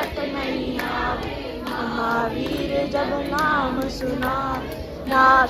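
Group of women and children singing a devotional song together in chorus, the melody rising and falling, loudest near the end.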